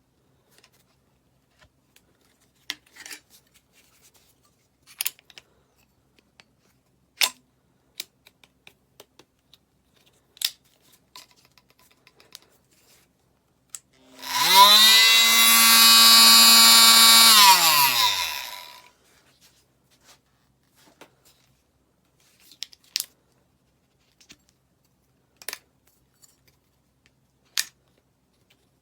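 Handheld oscillating multitool switched on, running unloaded for about four seconds with a steady whine, then winding down in pitch after it is switched off. Scattered light clicks and knocks of handling come before and after.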